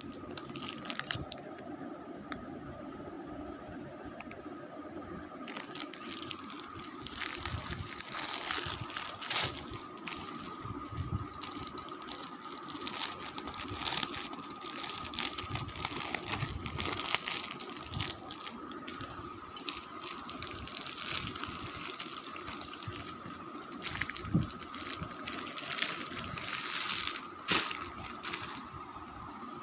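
Plastic packaging rustling and crinkling in irregular bursts as a parcel is opened and unwrapped, sparse for the first few seconds and then dense. A steady faint high whine runs underneath.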